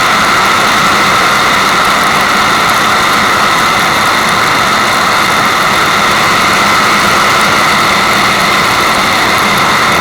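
Rushing water as masking white noise: a loud, steady hiss that never changes, with no drips or splashes standing out.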